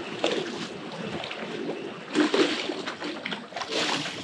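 Water splashing and slapping against the boat's hull, with louder rushes about two seconds in and again near the end.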